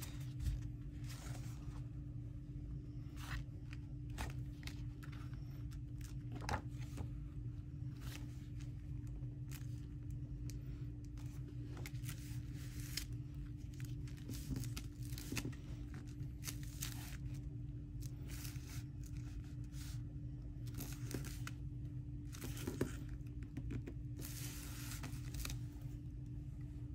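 Paper being handled and torn: scattered rustles, crinkles and short tearing sounds, with a couple of longer tearing or rubbing strokes, over a steady low hum.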